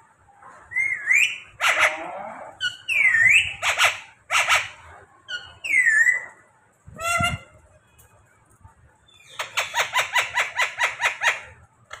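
Green ring-necked parakeet calling: a string of squawks and whistled rising and falling glides, then near the end a fast run of harsh repeated calls, about seven a second.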